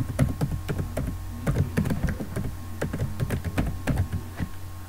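Typing on a computer keyboard: a quick, irregular run of key clicks that stops near the end, over a steady low hum.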